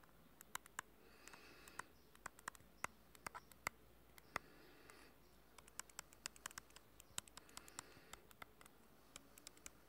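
Quick irregular clicks of a finger tapping and sliding on a phone's touchscreen close to its microphone, with a few soft breaths in between.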